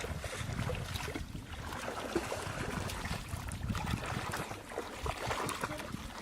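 Water splashing and sloshing in small irregular bursts, over a steady low rumble.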